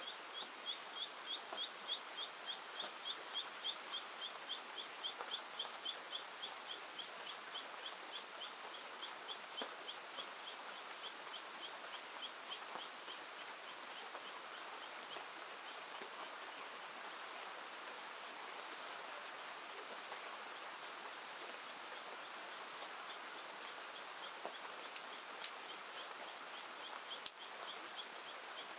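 A bird calling in a long, even series of short high chirps, about three a second, fading out about halfway through and returning faintly near the end, over the steady hiss of rain and the river. One sharp crack comes near the end.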